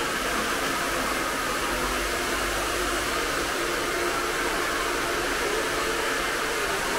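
Hair dryer running steadily at an even pitch.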